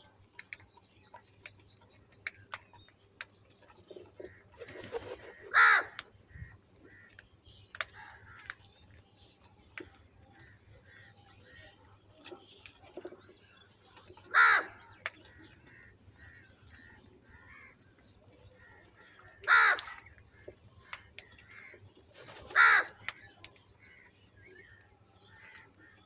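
House crows cawing while they feed: four loud, harsh single caws spaced well apart, with softer calls and scattered short clicks in between.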